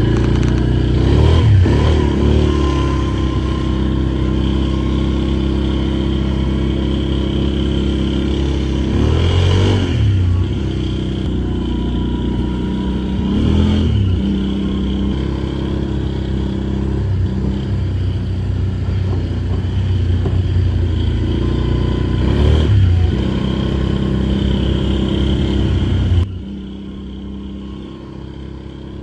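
Can-Am ATV engine running under way, its pitch rising and falling a few times as the throttle opens and closes. It drops suddenly much quieter near the end.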